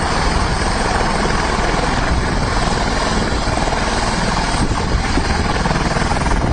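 Helicopter rotor and engine noise, loud and steady.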